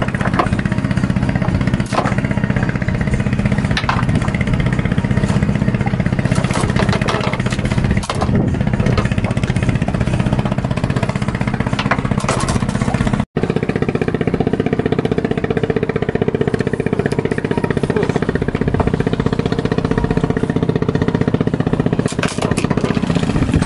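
A steady engine drone. It cuts out for an instant about halfway through and comes back at a higher pitch.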